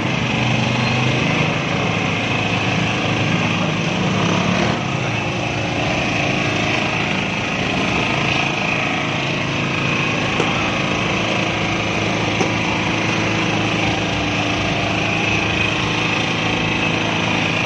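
A small engine running steadily, with a continuous hiss over it.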